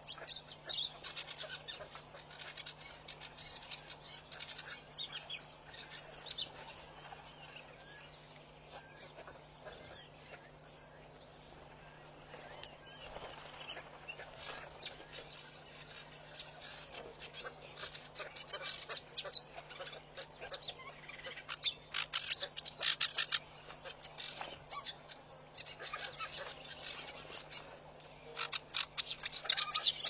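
Natural ambience at a waterhole: an insect chirps steadily a little over once a second. Loud bursts of rapid bird chatter come in about two-thirds of the way through and again near the end. A faint steady low hum runs underneath.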